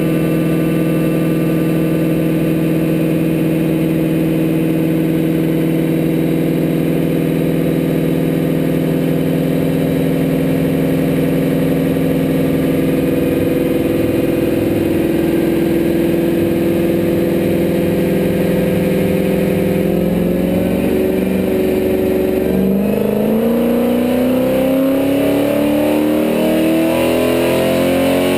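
Kenne Bell twin-screw supercharged V8 of a Ford F-150 SVT Lightning running steadily on a chassis dyno. About 23 seconds in, after a brief break, the engine pitch starts climbing steadily as it winds up through a wide-open-throttle dyno pull.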